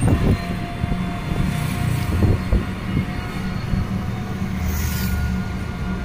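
Riding in an open-sided Yatri electric rickshaw: a steady low rumble and rattle of the vehicle over the road, with a faint steady whine above it.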